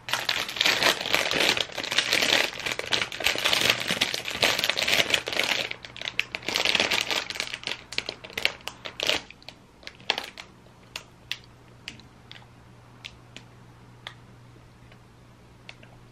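Plastic snack packaging crinkling and rustling as it is handled and opened, dense for about the first six seconds and again briefly a moment later. After that come scattered light crackles and clicks that thin out.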